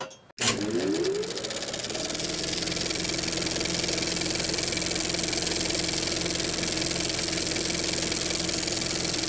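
A machine starting up: its pitch rises for about a second and a half, then it settles into steady, even running.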